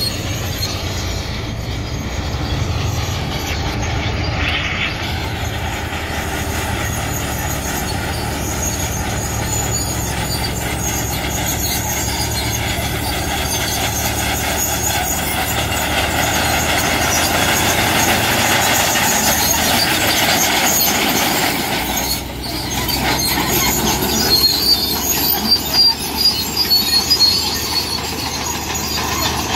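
Heavy road-construction machinery, a vibratory roller and a motor grader, running steadily with a low engine rumble and high-pitched metallic tones over it. About twenty-two seconds in the noise dips briefly, then turns uneven with sharp loud peaks.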